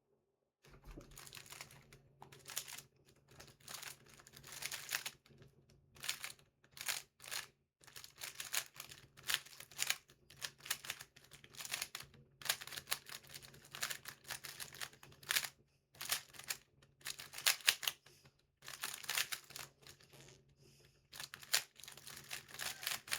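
GAN 356 RS magnetic speed cube being turned fast during a timed solve: rapid clattering clicks of the layers in bursts of a second or two, with short pauses between them.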